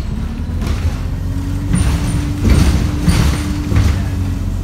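ADL Enviro350H bus engine running under way, heard from inside the passenger cabin as a low drone. A steady whine sits over it through the middle, and several bursts of rattling from the bodywork come about two to four seconds in. The uploader calls this engine thrashing and unhealthy.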